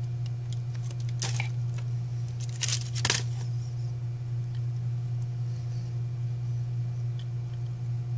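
Brief rustling and scraping handling noises from small tools being picked up, about a second in and again near three seconds, the second the loudest, followed by a few faint clicks. A steady low hum runs underneath.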